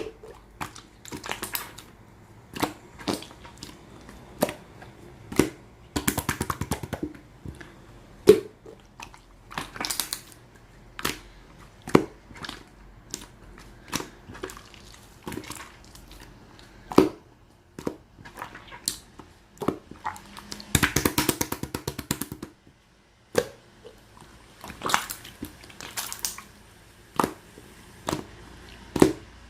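Slime being pressed, poked and folded by hand: a string of sharp sticky pops and clicks, with bursts of rapid crackling about six seconds in and again around twenty-one seconds.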